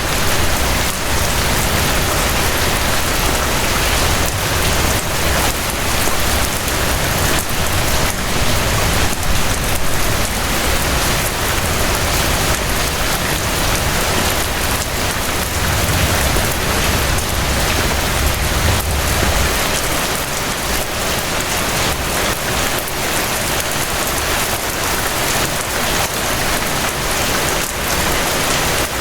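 Steady rain falling, a dense even patter of drops. A low rumble underneath eases away about two-thirds of the way through.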